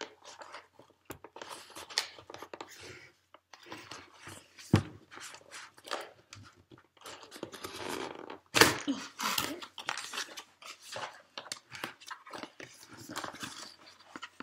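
Cardboard box being opened and handled: irregular rustling, scraping and crackling of the flaps and packaging, with a sharper knock about five seconds in and another about eight and a half seconds in.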